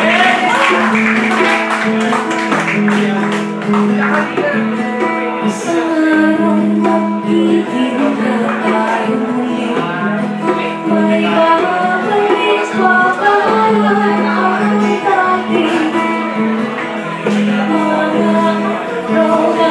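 A woman singing a song live while playing an acoustic guitar.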